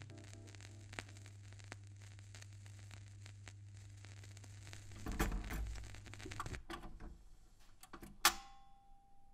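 Vinyl record surface noise: fine crackle and scattered clicks from the Shure cartridge's stylus running in a groove with no music, over a steady low hum. A louder low rumble comes about five seconds in, and a sharp click near the end.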